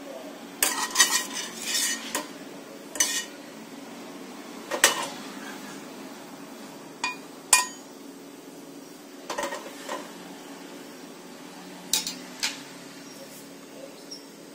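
A nonstick frying pan knocking and clanking against the metal pan support of a portable gas stove as it is lifted and tilted to swirl oil around, with irregular clanks every second or two. A steady low hum runs beneath.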